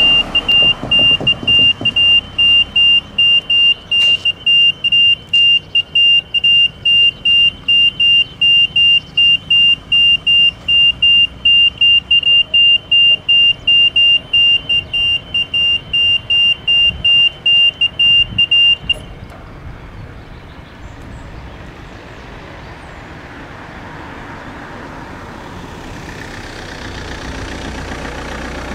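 Railroad level-crossing warning bell sounding as an electronic beep, a high tone pulsing about twice a second while the red lights flash and the barriers lower. It cuts off about two-thirds of the way through. A low rumble then builds near the end as the passenger train approaches.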